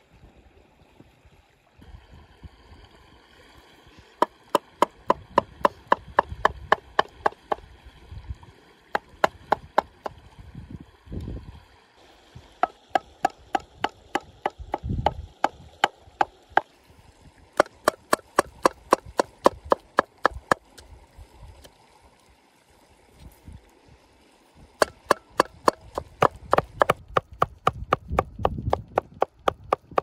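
A knife chopping quickly on a cutting board, about four to five strokes a second, in runs of a few seconds with short pauses between.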